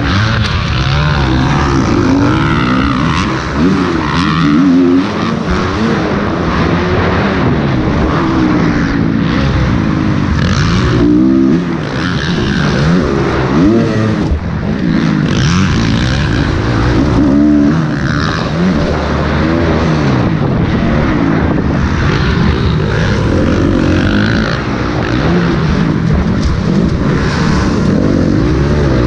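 Motocross bike engine at race throttle, revving up and falling back over and over as the rider works the throttle through the turns and jumps, heard close up from a helmet-mounted camera. Other race bikes run around it.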